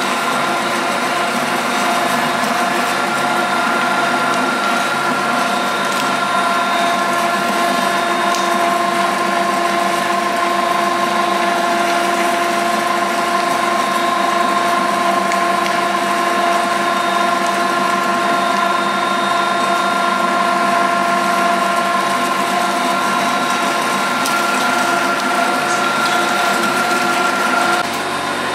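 Electric stainless-steel meat grinder running steadily while it grinds raw meat: a constant motor whine with several fixed tones over a grinding rattle. The sound shifts abruptly near the end.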